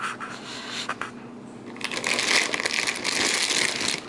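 Plastic packaging crinkling and rustling as it is handled, with a few light knocks in the first second and a dense, louder crinkle from about two seconds in.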